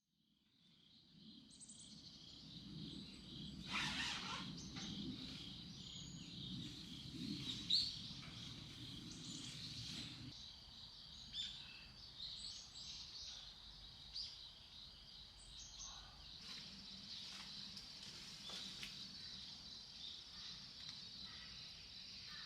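Forest ambience fading in: a steady high insect chorus with scattered bird chirps, over a low rumble that drops away about ten seconds in.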